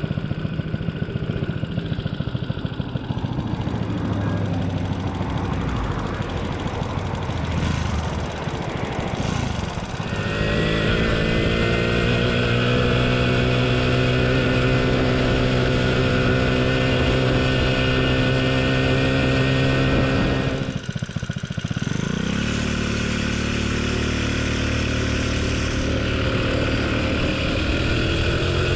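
Small 49cc engine of a homemade moped under way: uneven and low at first, then pulling up in pitch about a third of the way in and holding a steady high drone, dropping briefly as the throttle is eased about three quarters through, then climbing again.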